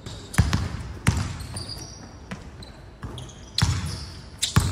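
Basketballs bouncing on a hardwood court: a handful of separate sharp bounces at uneven intervals, echoing in a large hall, with short high squeaks of sneakers on the floor between them.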